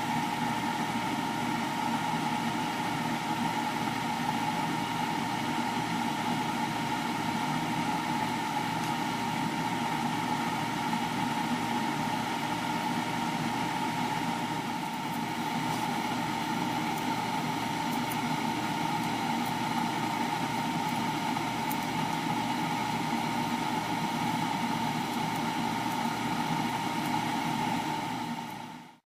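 Steady hum and hiss of a running grill appliance, with one constant high-pitched tone above it, while mochi cooks on its wire mesh.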